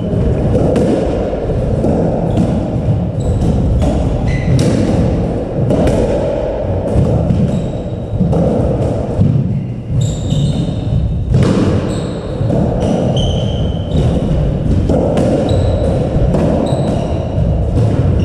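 Squash rally: the ball cracks off rackets and thuds against the court walls again and again, with short high squeaks of court shoes on the wooden floor between the hits.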